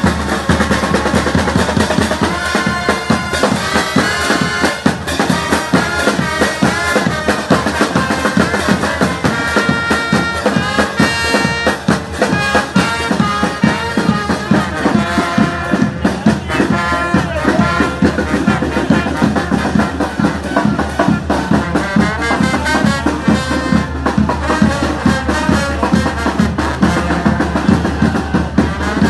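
Brass band music with drums, playing continuously with held brass notes over a steady beat.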